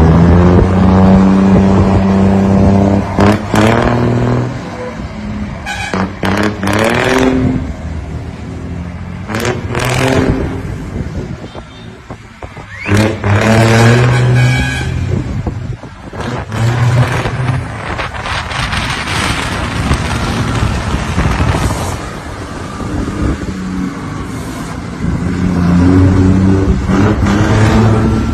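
Mercedes-Benz truck's diesel engine pulling away under load with a loud exhaust roar. Its pitch climbs and drops back several times as it shifts up through the gears.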